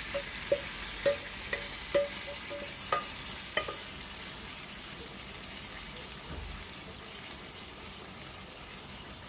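Tomato sauce scraped with a metal spoon out of a glass bowl into a hot clay tajine of kefta and fried onions. The spoon knocks against the bowl about six times in the first four seconds, some knocks ringing briefly, over steady sizzling and bubbling as the sauce hits the hot oil and cooks.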